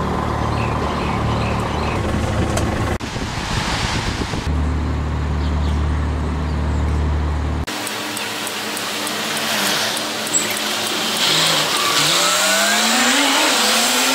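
Road traffic with bus engines at a kerbside bus stop: a steady low diesel hum in the first half, then passing cars, and near the end an engine accelerating, its pitch rising and dropping back a few times as it goes up through the gears. The background changes abruptly a few times.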